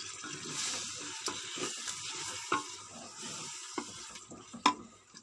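Tripe frying in oil with onion and garlic in a pot, sizzling as it is stirred, with a few sharp clicks of the spoon against the pot. The sizzle thins out in the last second or so.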